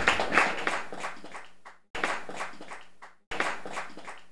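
An audience applauding, thinning to scattered claps. The sound cuts off abruptly twice and resumes each time.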